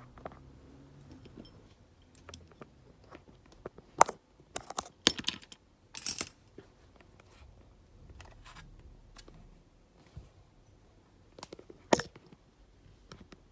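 Sharp clicks and light metallic clinks of small repair tools and phone parts being handled and set down on a hard work surface. They come scattered: one about four seconds in, a cluster around five to six seconds, and another near twelve seconds.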